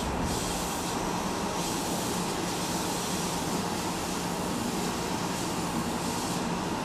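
Steady running noise of an electric train at the station: a continuous rumble and hiss with a low steady hum, with no sudden events.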